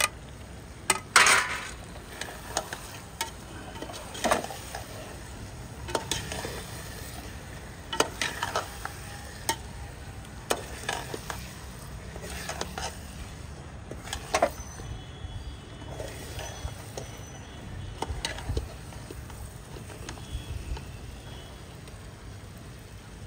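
A spoon stirring and scraping in a cooking pot, knocking against its side every second or two, as a whole chicken is worked into half-fried masala that is sizzling underneath.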